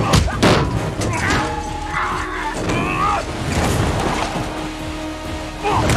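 Action-film soundtrack: a music score plays over the low rumble of a heavy truck driving on desert dirt. Sharp impacts hit in the first half-second, and a few shouts follow.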